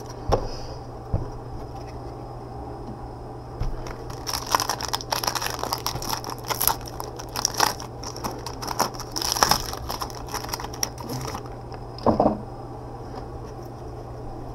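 Stiff 2017 Illusions football cards being handled and slid against one another by gloved hands: a run of quick crackling clicks and rustles from about four seconds in until past eleven, with a few single soft knocks before and after. A steady low hum runs underneath.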